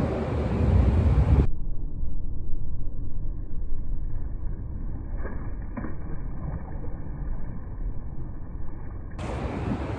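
Steady rushing noise of wind and fast-flowing tailwater. About a second and a half in the sound turns muffled and dull until near the end, with a couple of faint splashes from a hooked fish a little past the middle.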